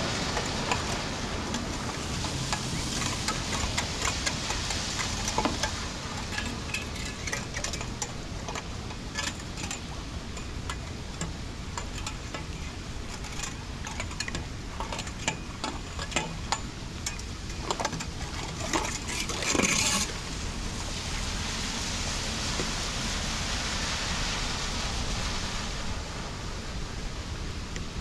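Steady wind-and-rain noise with water washing over a flooded street, and scattered scrapes and clicks as debris is cleared from a storm drain grate. The clicks are thickest in the middle, with the loudest scrape about two-thirds of the way through.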